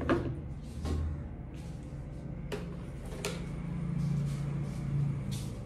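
A few short scratching strokes and clicks of a comb being drawn through and parting thick curly hair, over a steady low hum.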